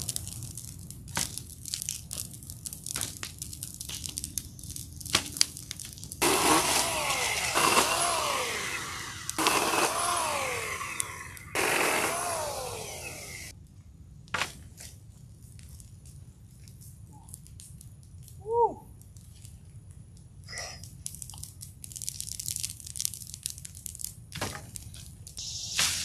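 Dry brush being broken up and piled on a fire: sharp snapping and crackling of branches, then a long stretch of loud rustling as leafy limbs are dragged and thrown onto the burn pile. Scattered snaps follow, with a brief chirp about two-thirds of the way through and more rustling near the end.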